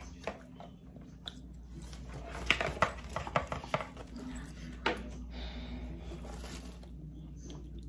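Cosmetics packaging being handled and rummaged through: a run of sharp clicks and crinkles about two to four seconds in, another click near five seconds, then a soft rustle.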